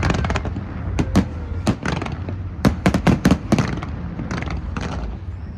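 Fireworks going off: a rapid, irregular string of sharp bangs and crackles over a low rumble. The bangs bunch about a second in and again around three seconds, then thin out near the end.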